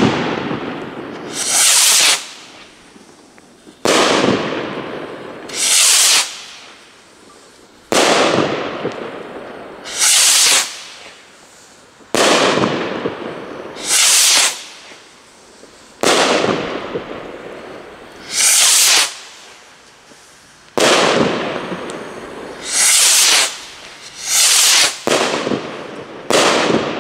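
New Year's Eve firework rockets launched one after another from an automatic rocket stand, each rocket igniting the next. Each goes up with a short hiss and bursts with a bang a couple of seconds later that echoes away, roughly every four seconds, the last few coming faster.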